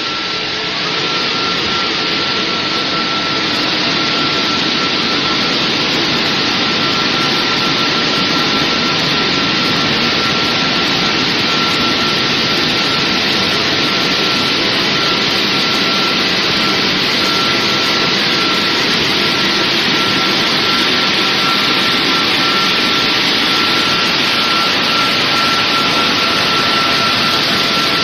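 Touchless automatic car wash machine running: a loud, steady rush with one steady whine on top.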